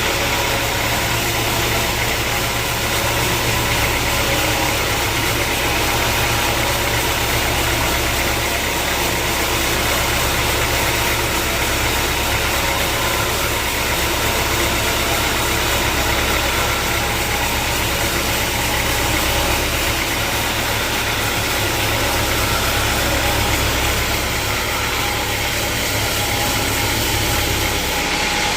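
Sawmill machinery running steadily: a constant low motor drone under an even hiss. The low drone drops away near the end.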